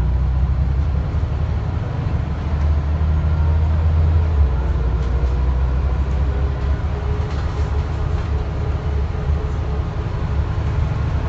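Scania N94UD East Lancs OmniDekka double-decker bus under way, heard from inside the passenger saloon: its nine-litre five-cylinder diesel and drivetrain run with a deep, steady drone that grows louder for a couple of seconds around three to four seconds in, with a faint steady whine above it.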